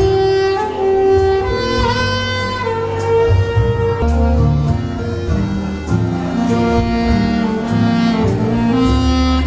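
Saxophone played live, a slow melody of long held notes, over a backing accompaniment with a deep bass line and string-like sounds.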